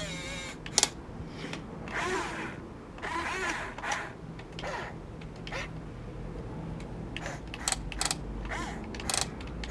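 Small electric motors and gear drives of a Huina 15-channel RC excavator whirring steadily, with sharp clicks and knocks about a second in and again near the end.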